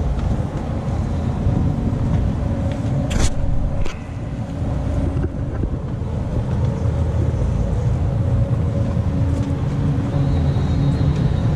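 Street ambience: a steady low rumble of traffic, with a sharp click about three seconds in and a smaller one just before four seconds.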